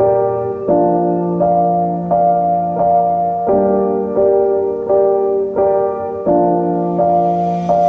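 Background music played on a keyboard, sustained chords with a new chord struck about every 0.7 seconds in an even rhythm.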